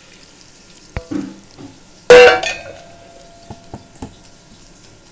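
Steel pot and steel bowl knocking together: a light knock about a second in, then a loud metallic clang about two seconds in that rings briefly, followed by a few soft taps.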